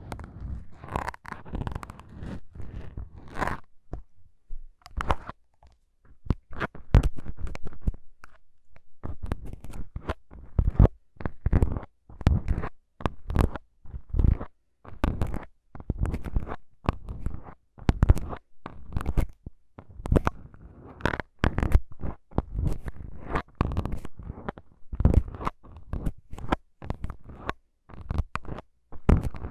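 Needles of plastic syringes poking and scratching the foam windscreens of a Tascam DR-40X recorder's microphones: a long, irregular run of short scratches and taps, each with a dull thump, with a brief pause about four seconds in.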